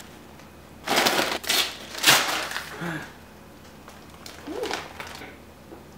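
Plastic snack wrapper crinkling and tearing as it is pulled open. The sound comes in a few rough bursts starting about a second in and lasting about two seconds.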